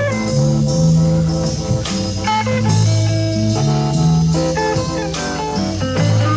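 Live rock band playing an instrumental stretch: electric guitar lines over held bass notes and drums, from a 1973 live tape with tape hiss.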